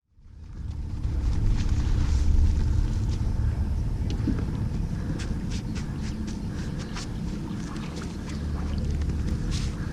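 Wind buffeting the microphone as a fluctuating low rumble, with scattered light clicks over the top.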